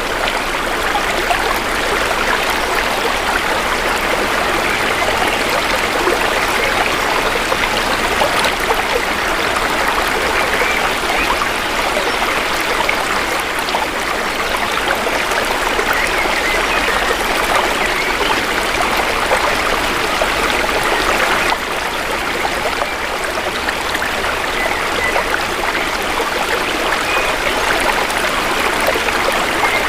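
Shallow stream flowing steadily, a continuous trickling, babbling rush of water.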